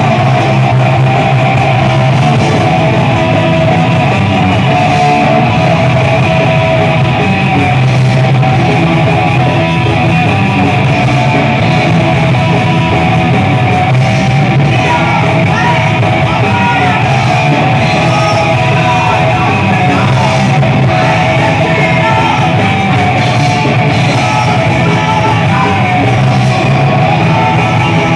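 Thrash metal band playing live and loud: distorted electric guitar over a drum kit, with a woman's shouted and sung vocals.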